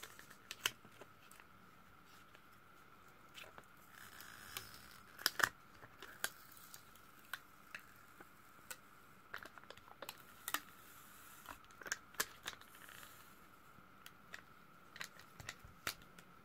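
Light, irregular clicks and ticks of an opened Turkcell T60 smartphone's parts being pried and handled during disassembly, over a faint steady whine.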